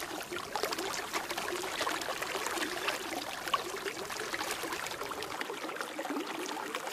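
Water splashing and trickling, a steady stream of small splashes as a hand stirs and scoops in a shallow pool among low plants.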